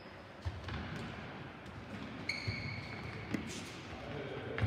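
Futsal ball being kicked and thudding on the hard indoor court, several separate knocks over a few seconds, with a short high squeak a little past the middle.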